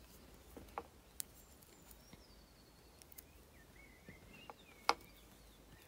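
A few light clicks and ticks of copper wire being handled between the fingers; the sharpest tick comes about five seconds in. Faint high chirps sound in the background.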